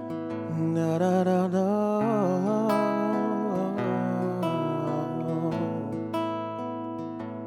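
Acoustic guitar strumming the instrumental intro of a worship song, with a wavering melody line with vibrato over the chords for a few seconds.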